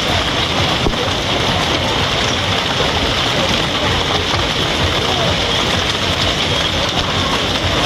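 Heavy hail pelting the water of a swimming pool: a loud, steady wash of countless splashes and small impacts.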